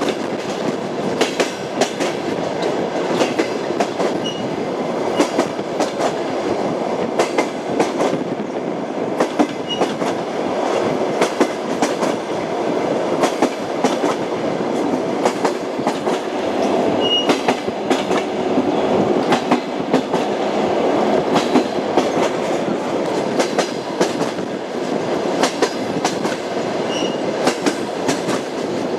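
Railway carriage wheels clattering over rail joints as the train rolls along: a steady rumble with many sharp, irregular clicks and a few brief high squeaks.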